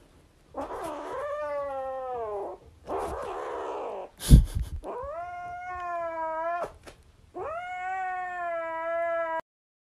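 Kitten giving long drawn-out meows, three of about two seconds each, with a rougher, noisier call between the first two. A sharp knock sounds about four seconds in.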